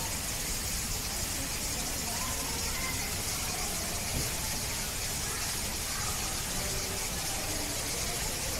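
Steady hissing background noise with faint, scattered voices.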